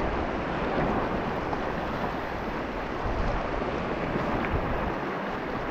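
Wind buffeting the microphone over a steady rushing of sea and waves.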